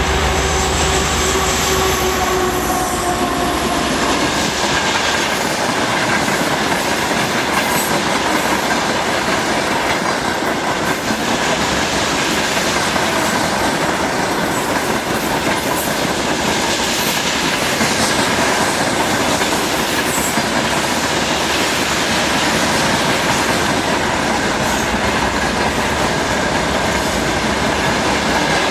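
Freight wagons, mostly hoppers and tank cars, rolling past on the rails in a steady loud rumble and clatter with a faint steady wheel squeal. In the first few seconds the falling hum of the departing 2TE10MK diesel locomotive fades out.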